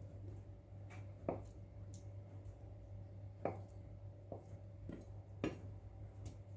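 Large kitchen knife slicing through soft mozzarella and knocking on a bamboo cutting board: three sharp knocks about two seconds apart, with lighter taps between, over a steady low hum.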